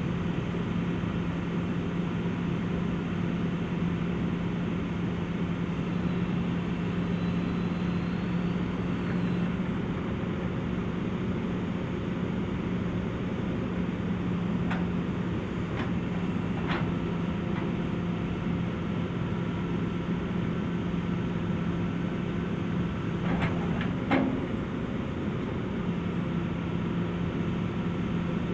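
Hitachi EX355 demolition excavator's diesel engine running at a steady pitch, with a few sharp knocks from the machine, the loudest about 24 seconds in.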